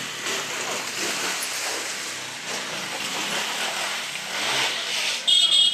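Motorcycle traffic on a wet, muddy road: small engines and tyres through puddles, with voices in the background. A brief, loud, shrill horn-like tone sounds near the end.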